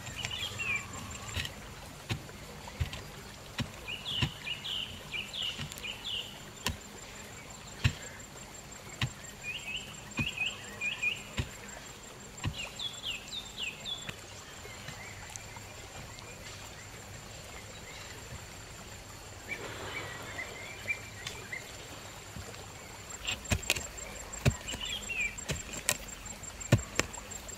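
A long-handled hoe chopping into earth, its blade striking the soil in irregular thuds, sparse through the middle and coming thick and fast near the end. Birds chirp in short flurries throughout, over a steady high-pitched whine.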